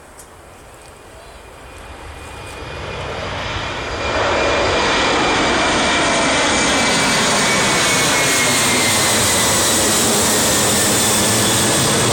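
Jet airliner taking off: the engine noise builds over the first few seconds and then holds loud and steady, with a faint high whine that slowly falls in pitch.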